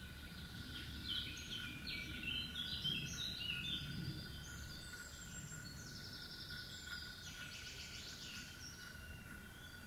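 A songbird singing: a run of varied, quickly changing high notes, with trilled phrases near the end.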